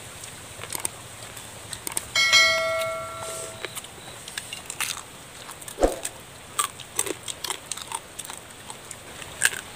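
A small stainless steel bowl rings once when knocked, about two seconds in, its metallic tone fading over a second or so. Around it come scattered small clicks and cracks of cooked crab shells being broken apart and eaten by hand, and a dull thump near the middle.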